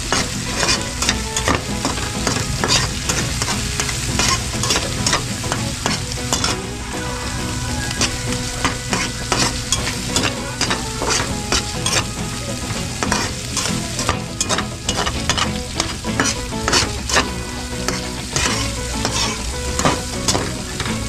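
Corned beef and egg frying and sizzling in a pan while being stirred, with many quick scrapes and clicks of the utensil against the pan.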